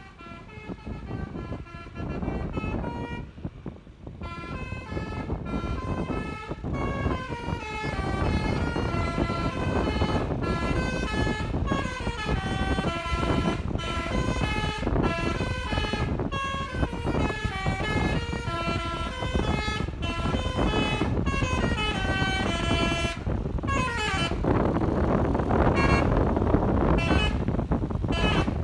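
A bus's multi-tone basuri "telolet" air horn playing a long string of melodies, note after note in quick steps, over the bus's engine and road noise. It grows louder over the first several seconds, and a quick rising run of notes comes near the end.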